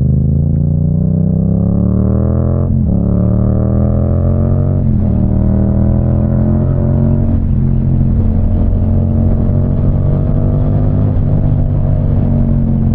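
Yamaha R7's 689 cc parallel-twin engine accelerating hard through the gears, its pitch rising in each gear with upshifts about three and five seconds in and again at about seven and a half seconds. After that it holds a steady pitch at cruising speed.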